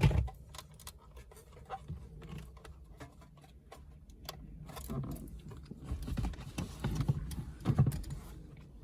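Scattered plastic clicks and light rattles of wiring connectors and dash trim being handled and unplugged behind a car's factory head unit, with a sharp knock right at the start and a few duller bumps in the second half.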